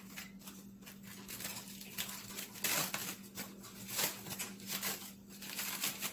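Clear plastic bag of celery crinkling and rustling in irregular crackles as it is handled, over a faint steady hum.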